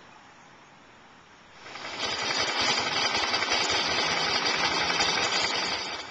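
Suzuki SV650's 90-degree V-twin engine running, loud, with rapid even pulses. It comes in about two seconds in and cuts off abruptly at the end.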